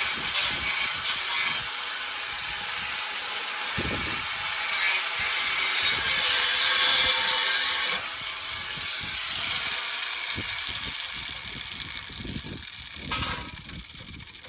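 Power cutting tool cutting through steel body panel with a steady, harsh hiss. About eight seconds in it drops sharply, then fades out over the next few seconds.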